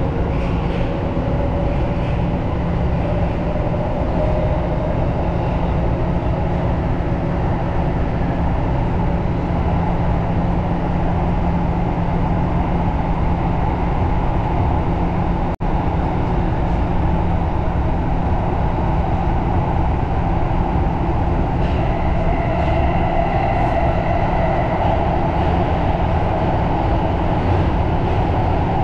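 Tokyo Metro Marunouchi Line subway train running, heard from inside the front car: a steady rumble of wheels on track with an electric motor whine that rises gently in pitch over the first few seconds. Higher whining tones join about two-thirds of the way in. The sound cuts out for a split second about halfway.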